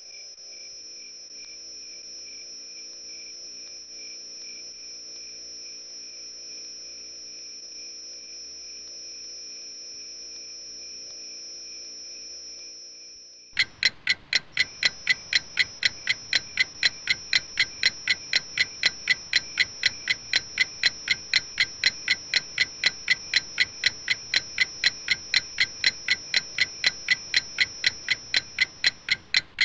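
Crickets chirring steadily in a high, even trill. About 14 seconds in, a loud, rapid clock-like ticking starts over them, about three ticks a second.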